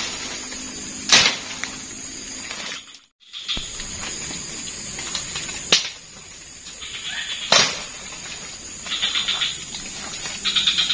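Insects trilling in short, rapid high-pitched pulses over a steady thin high drone, with four sharp cracks spread through. The sound cuts out briefly about three seconds in.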